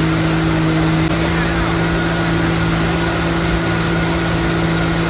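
Tow boat's engine running at a steady speed, a constant drone that rises slightly in pitch about a second in, over the steady rush of wind and churning wake water.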